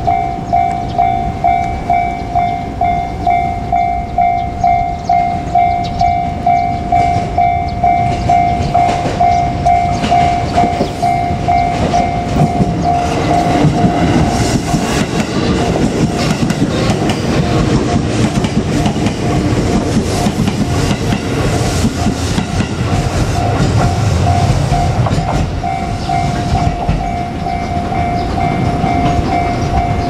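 Japanese level-crossing warning bell ringing in an even, repeating ding. About twelve seconds in, a JR Kyushu 787 series express train passes close by with a loud rumble and wheel clatter over the rail joints that drowns the bell for about fourteen seconds. The bell is heard again near the end.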